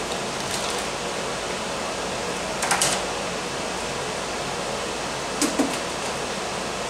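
Plastic meat packaging crinkling in short bursts as it is handled, about half a second in, near three seconds and again about five and a half seconds in, over a steady background hiss.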